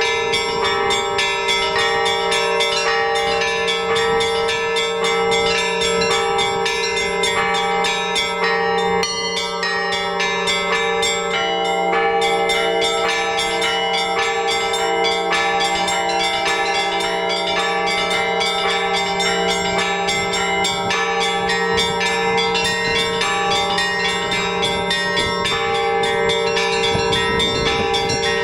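Orthodox church bells ringing together in a continuous peal: the small bells struck in a rapid, dense pattern over the steady hum of the larger bells.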